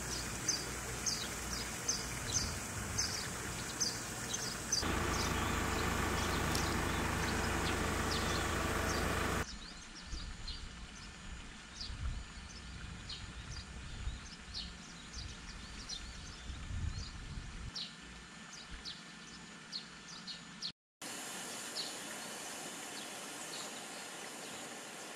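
Outdoor countryside ambience: short high chirps repeating a few times a second over a steady background hiss. For several seconds in the first half a louder steady noise covers it, and there is a brief dropout to silence about three-quarters of the way through.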